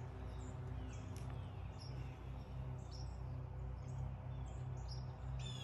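Wild birds chirping outdoors: many short, high calls, several falling in pitch, scattered all through, over a steady low hum.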